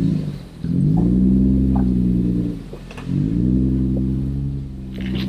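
Off-road vehicle engine working under throttle on a rock trail: its pitch climbs and slowly sags in two long swells, each cut short by a brief drop as the throttle is lifted, with a few light clicks.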